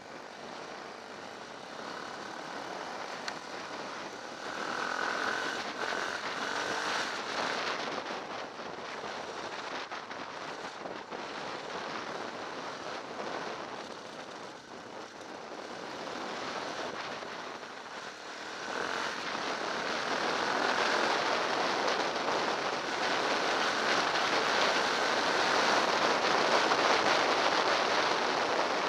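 Trail motorcycle ridden along a gravel track, heard from a camera on the bike: the engine running under a steady rush of wind noise, which grows louder about two-thirds of the way through.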